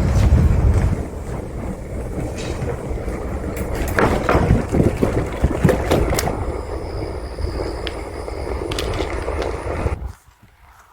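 Bicycle ride along a paved trail: wind buffeting the microphone over the rumble of the tyres, with scattered rattles and knocks from the bike. The noise drops away sharply about ten seconds in.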